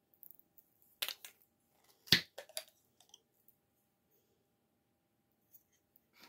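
Metal twist-off cap being unscrewed from a glass bottle: a few sharp clicks, the loudest about two seconds in.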